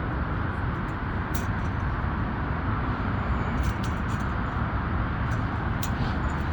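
Steady low outdoor rumble with three faint sharp clicks spread through it.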